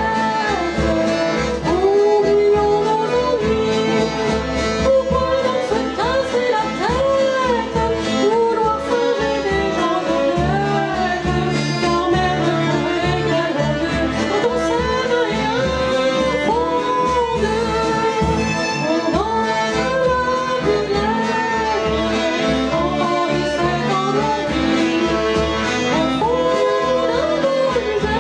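Live folk dance band playing a tune with fiddle, a woman singing and a steady beat.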